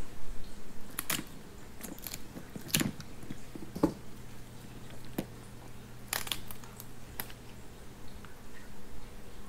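Kitchen shears cutting through raw crab shell and legs: a run of sharp snips about a second apart, thinning out after about seven seconds, over a faint steady hum.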